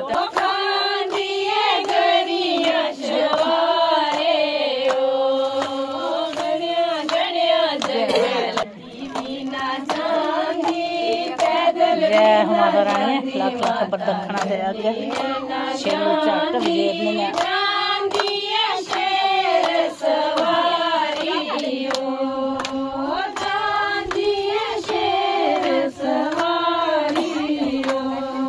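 Women's voices singing a Punjabi devotional bhajan together, a kirtan to the goddess, with steady rhythmic hand-clapping.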